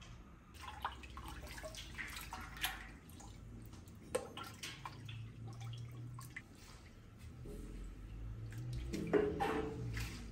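Dye bath splashing and dripping in a large stainless steel pot as skeins of yarn are stirred, lifted and dunked with a stick. It starts about half a second in, in irregular splashes and drips, and is loudest near the end.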